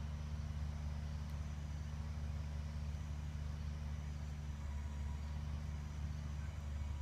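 Steady low mechanical hum, unchanging throughout, with no other distinct sounds.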